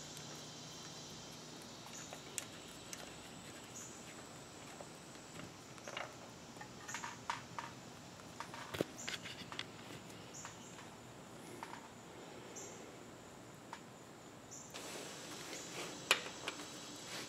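Faint, scattered clicks and light taps of a socket wrench being worked on a Subaru flat-four's engine block coolant drain plug, loudest in a cluster a few seconds in and once more near the end, over a low steady hiss.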